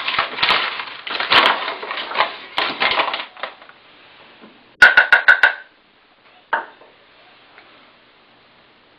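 Flour being measured into a mixing bowl: a few seconds of rustling and scraping, then a quick run of about six sharp taps with a ringing note, knocking against a dish, and a single knock a second later.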